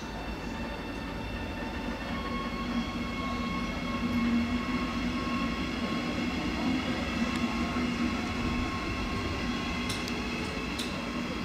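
Electric regional train of red double-deck coaches rolling slowly past, with a steady rumble and a steady hum and whine from its running gear. A couple of sharp clicks come near the end.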